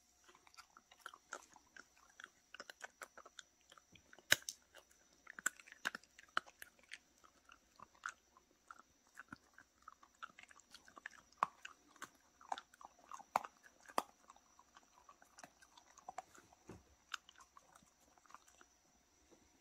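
Dogs chewing and crunching pieces of beef liver jerky: irregular crisp bites, a few a second throughout, with the sharpest crunch about four seconds in.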